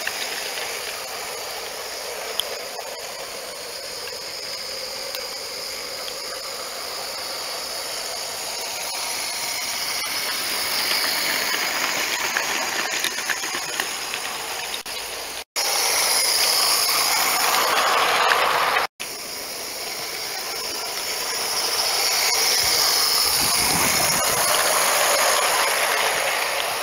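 Live-steam model steam tram hissing steadily as it runs, hauling a rake of small wagons whose wheels clatter lightly on the track. The sound cuts out twice briefly about halfway through.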